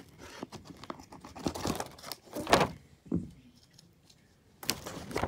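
Tape being peeled and pulled off, crinkling and tearing in irregular bursts among small handling clicks, with one louder rip about two and a half seconds in. After a short pause, more dense crinkling near the end.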